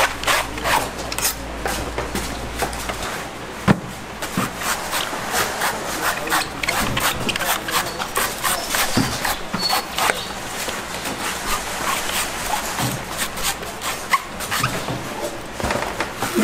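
Knife working the husk of young coconuts: dense, irregular scraping with many sharp knocks.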